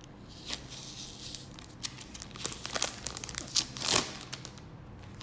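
Cellophane wrap being pulled off a keyboard and crinkling, a run of sharp irregular crackles, loudest about four seconds in.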